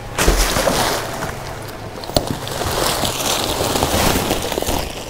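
Large black plastic bag rustling and crinkling as it is pulled open and handled, with a sharp crackle about two seconds in.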